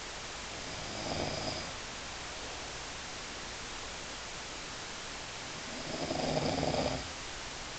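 Snoring: two rough snores about five seconds apart, the second longer and louder, over a steady hiss.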